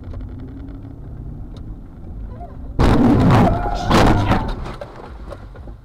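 Low road and engine rumble from a car, then about three seconds in a sudden loud crash, with a second heavy hit about a second later and a short fading aftermath: a vehicle collision.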